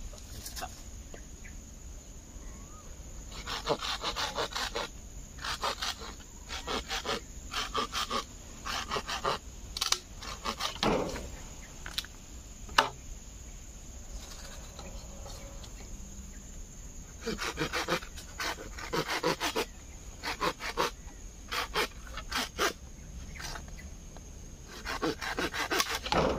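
Hand saw cutting through a green bamboo pole in several spells of quick back-and-forth strokes, with pauses between them and one sharp knock about halfway. A steady high drone of insects runs underneath.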